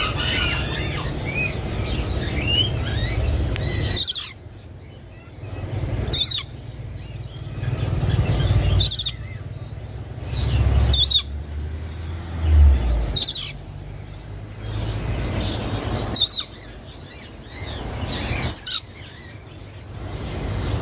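Parakeet (tia) giving short shrill calls about every two to three seconds, seven in all, over a low rumble. Many smaller bird chirps are heard before the first call.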